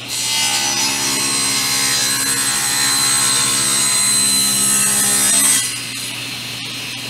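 SawStop table saw with a new 10-inch, 60-tooth carbide-tipped blade ripping a narrow board. The cut runs about five and a half seconds, with a steady high whine over the cutting noise, then the saw runs on freely with no wood in the blade.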